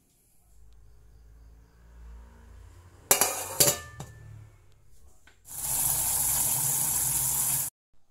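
Dishes being handled: two sharp clinks of china about three seconds in, then a loud steady rushing noise for about two seconds that cuts off abruptly.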